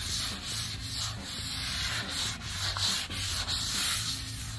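Hand sanding block with 500-grit wet sandpaper stroked back and forth over soapy high-build primer, a rhythmic wet rasping of about two to three strokes a second. The gritty catch of the paper is the dust nibs being knocked off the fresh primer.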